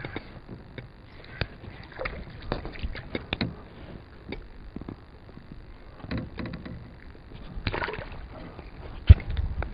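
Handling noise in a kayak: scattered clicks and knocks of gear and hands against the hull, with light water sounds, and one sharp thump near the end.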